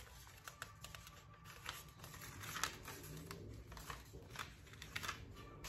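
Faint, scattered rustling and light ticks of paper and packaging being handled.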